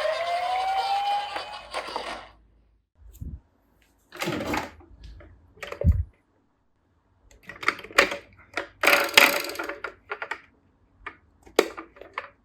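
A toy emergency vehicle's electronic siren wailing, which fades out about two seconds in. Then come scattered light clicks and knocks of plastic toy cars being handled.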